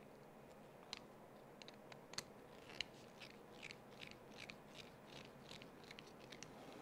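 Faint creaking and scraping of a small screw being driven into a plastic RC-truck suspension part with a hand driver. A few sharp clicks come first, then short squeaky strokes about two to three a second in the second half.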